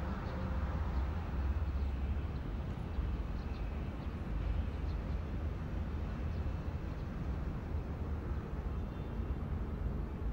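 Steady low rumble of outdoor background noise with no speech or music, an even drone that holds throughout.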